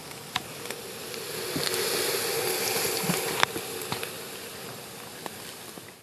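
An insect buzzing over a steady hiss, with scattered sharp clicks; it cuts off suddenly at the end.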